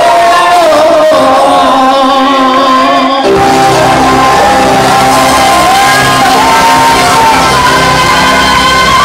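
Live band music: a woman singing over trumpet and electric guitar, with the bass and drums coming in heavily about three seconds in.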